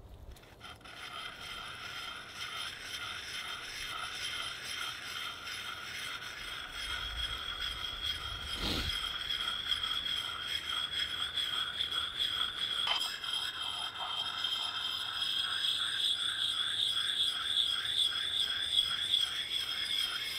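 Round sharpening stone rubbed in repeated strokes over an axe bit: a rhythmic scraping of stone on steel, with a steady high ringing under it.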